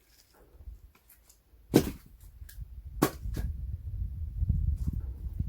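An axe chopping into firewood twice, just over a second apart, a sharp strike each time, with a low rumble building underneath after the first strike.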